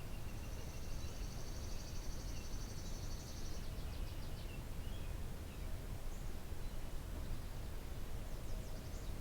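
Songbirds in a garden: a high, rapid trill lasting about three seconds, then scattered short chirps and a quick run of notes near the end, over a steady low rumble.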